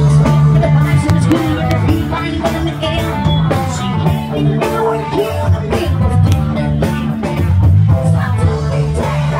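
Rock music with electric guitar, drums and singing.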